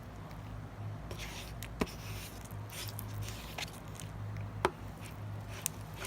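Slime being stirred in a bowl as the activator is mixed into the glue: sticky, wet squishing with a few sharp clicks of the utensil against the bowl. A steady low hum runs underneath.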